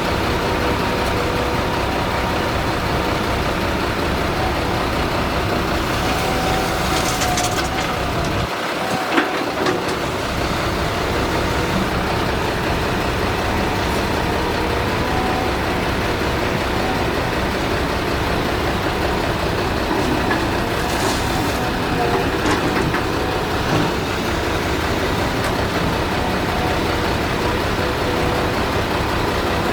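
Heavy diesel machinery, an excavator at work, running steadily with a whine held over the engine noise. The deep rumble drops out briefly about nine seconds in, with one sharp knock.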